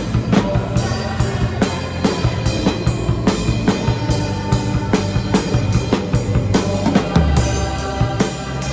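Drum kit played in a steady worship-rock groove, kick and snare hits repeating about two to three times a second, heard through the room along with the song's backing track of sustained bass and keyboard tones.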